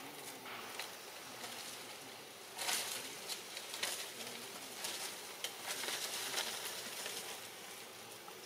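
Irregular crackling and rustling of leaves and leaf litter as a young macaque moves and picks through the undergrowth, growing busier from about two and a half seconds in.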